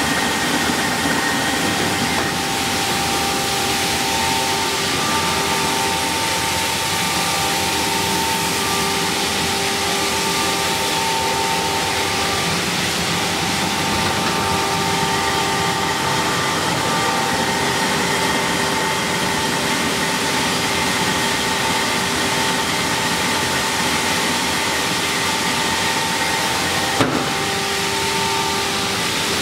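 Lentil peeling and splitting machine running: a steady loud mechanical rush with several high whining tones that fade in and out. There is a single sharp click near the end.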